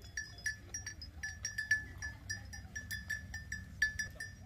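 A small bell on a grazing cow clinking irregularly, several times a second, at one fixed pitch, over a low steady rumble.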